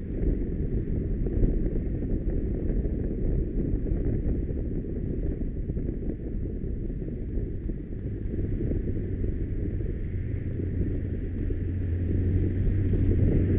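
Wind buffeting the microphone of a camera on a moving motorcycle, with a low engine hum underneath that grows stronger in the last few seconds as the bike filters between lanes of slow traffic.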